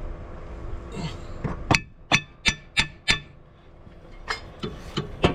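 Hammer tapping a new CV axle seal into place: five sharp, ringing metal strikes about three a second, then a few lighter taps near the end.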